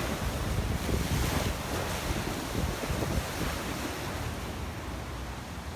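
Sea waves washing against the walkway, with gusty wind buffeting the microphone; the rush eases off near the end.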